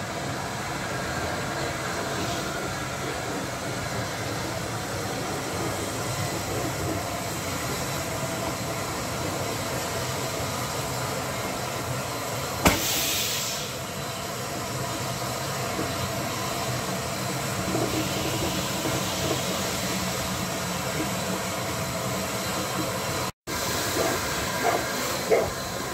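Double-headed steam locomotives, a black engine leading LNER A4 Pacific 60007 Sir Nigel Gresley, working slowly past with a steady rumble of running gear and steam. About halfway through comes a sharp crack and a short burst of steam hiss. Near the end there is a run of louder exhaust beats.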